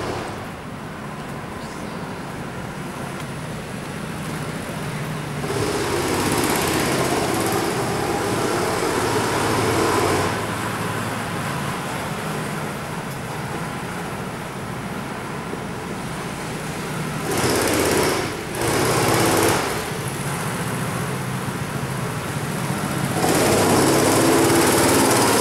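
Small children's go-kart engines running steadily, with the buzz swelling louder three times as karts pass close by.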